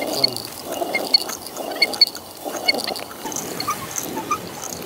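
Hand-turned stone quern grinding finger millet (ragi): a gritty scraping of stone on stone that swells about once a second with each turn of the upper stone.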